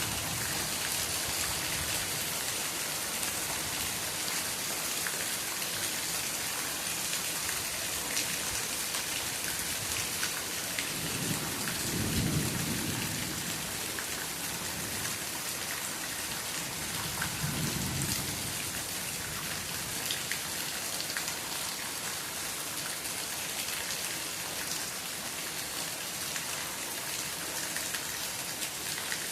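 Steady rain falling, with drops pattering and ticking on nearby surfaces. Two low rumbles of thunder swell up about halfway through, the second a few seconds after the first.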